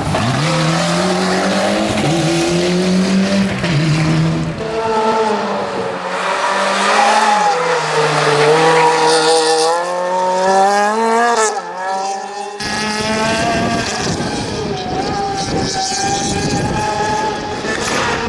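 Rally car engines revving hard through a tight turn, the pitch climbing and dropping over and over with throttle and gear changes.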